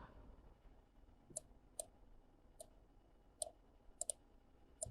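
About six faint, scattered clicks of a computer mouse against near silence, two of them close together like a double-click near the end.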